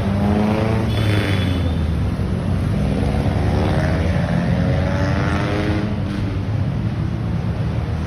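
Busy road traffic: a steady low rumble of idling engines, with vehicles accelerating and passing, their engine pitch rising and falling through the first six seconds or so.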